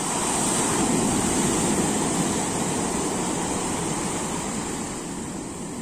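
Sea waves breaking and washing up a beach: an even rush that swells during the first second or so and then slowly fades.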